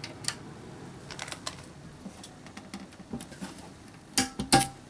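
Glass side panel of a PC case being handled and its thumbscrews undone by hand: scattered small clicks and taps, with two louder clinks near the end.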